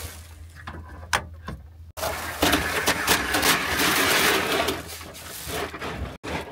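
Pleated fabric windshield night shade being pulled up along its side tracks: a rustling, sliding noise lasting about three seconds, preceded by a couple of light clicks.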